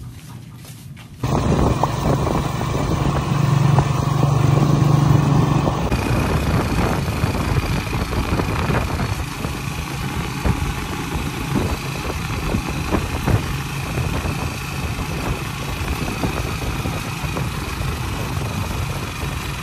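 A motor engine running steadily, coming in abruptly about a second in, with a thin steady high whine joining about six seconds in.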